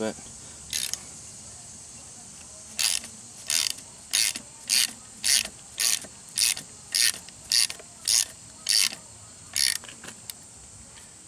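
Ratchet wrench turning the screw of a valve spring compressor on a cylinder head, clicking in short bursts about twice a second as it compresses a valve spring.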